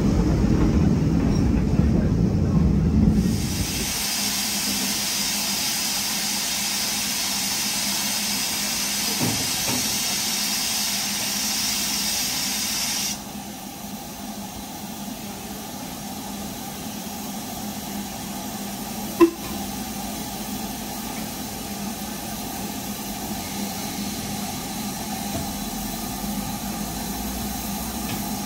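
Steam hissing steadily from a preserved LMS Black 5 steam locomotive standing at the head of its train. It starts a few seconds in after a low rumble and cuts off suddenly about halfway through. A quieter steady hum follows, with one sharp click.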